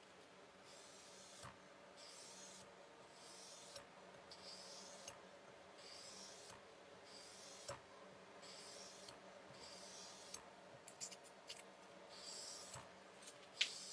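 A hand-held abrasive rubbed lengthwise along the bevels of a Damascus steel cleaver blade, hand-polishing a longitudinal satin finish. It makes soft, even scraping strokes about once a second, with a few light clicks.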